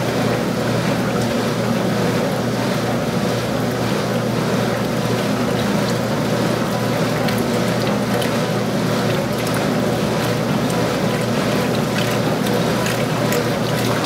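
Early-1980s Montgomery Ward top-loading washing machine agitating through its wash cycle: a steady hum from the motor and transmission under the sloshing and churning of water and clothes in the tub.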